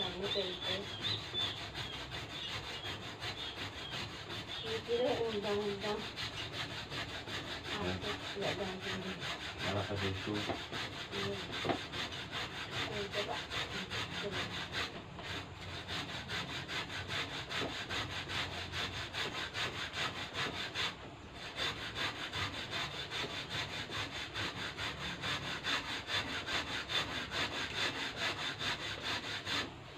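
Rapid, steady back-and-forth scraping strokes of a hand tool worked by hand, kept up without a break.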